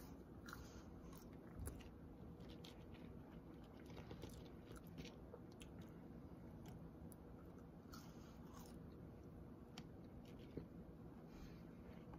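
Quiet close-up eating: a person biting and chewing fast food, with faint crunches and mouth clicks scattered through, over a steady low room hum.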